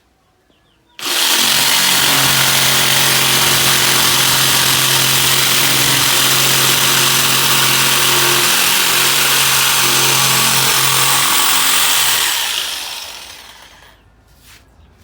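Total 800 W electric jigsaw cutting on orbital (pendulum) setting 3, its most aggressive cutting action. It starts suddenly about a second in, runs steadily through the cut, and winds down near the end.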